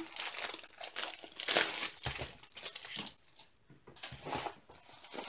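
Crinkling and rustling of the plastic wrapping on a rolled diamond painting kit as it is handled, in irregular bursts, loudest about a second and a half in.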